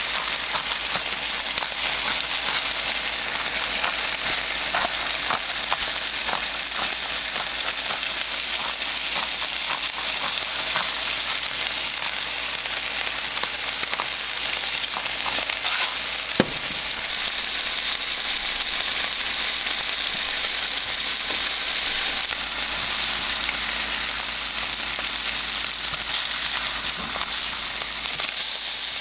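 Striped bass fillets frying in hot olive oil in a pan: a steady sizzle with scattered small pops and crackles, and one sharp click a little past halfway.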